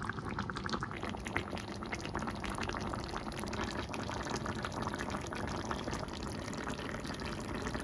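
Pot of stew bubbling at a boil: a steady, dense crackle of small bubbling pops.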